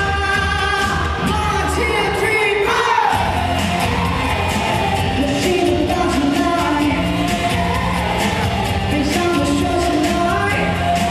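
Male pop singer singing live into a handheld microphone over a backing track, amplified through a PA; his voice slides down in pitch about three seconds in.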